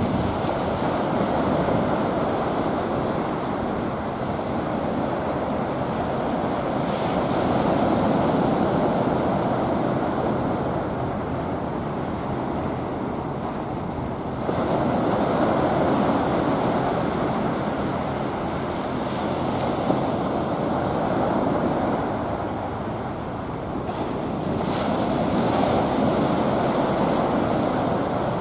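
Ocean surf breaking on a beach: a continuous wash of waves that swells and falls every six seconds or so, with a hissing surge as a wave breaks about halfway through and again near the end.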